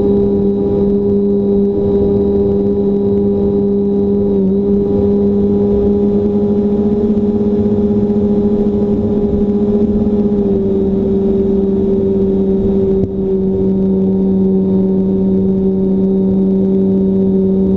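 Radio-controlled plane's motor and propeller droning at a steady throttle, with a brief dip about two-thirds of the way through.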